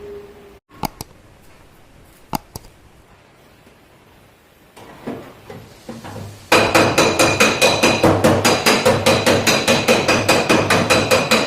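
A hammer striking a car's sheet-metal body panel: a few separate knocks, then from just past the middle a fast, even run of ringing blows, about six or seven a second, as the panel is beaten out.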